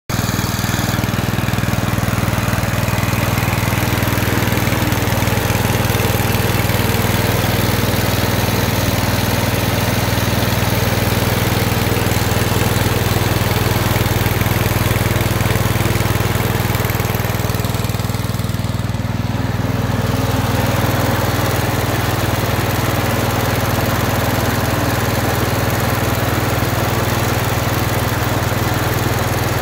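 Snapper 1438 LE lawn tractor engine running steadily, with a constant low hum. The higher part of the sound briefly dulls about two-thirds of the way through.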